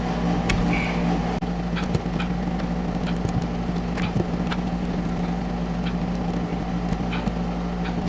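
A steady low mechanical hum, like a motor running, with scattered small clicks and snips from wire strippers taking the insulation off electrical cable.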